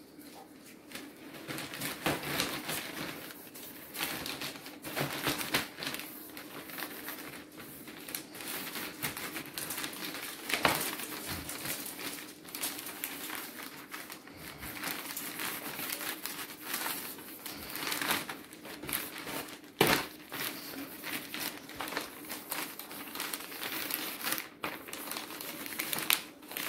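Red plastic specimen bag crinkling and rustling under the hands as it is wiped down with an alcohol swab, with irregular sharp crackles, the loudest about 20 seconds in.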